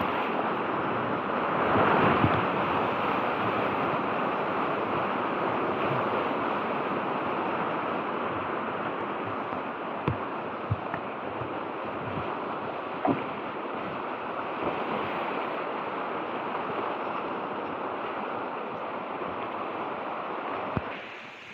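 Whitewater rapids rushing steadily and loudly, heard up close from a kayaker's helmet camera, with a few sharp knocks. The rush drops off sharply near the end.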